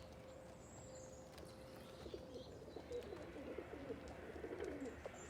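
Domestic pigeons cooing softly, low warbling coos that start about two seconds in and repeat.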